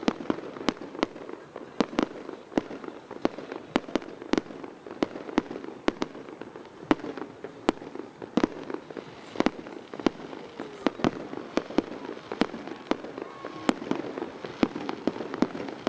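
Fireworks display: a rapid, irregular barrage of sharp bangs, about two or three a second, over a continuous crackling, noisy background.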